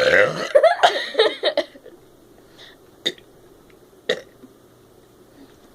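A person burping loudly after chugging carbonated soda, a long wavering burp with several pulses lasting over a second. It is followed by two brief sharp throat sounds about a second apart.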